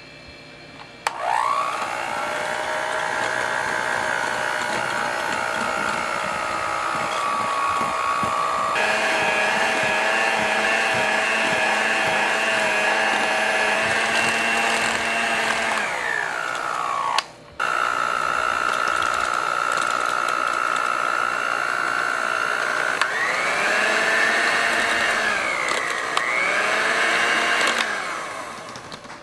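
Electric hand mixer whipping mascarpone cream in a glass jar: a steady motor whine that starts about a second in. It winds down and cuts out briefly around the middle, then runs again, its pitch dipping a couple of times near the end before it fades.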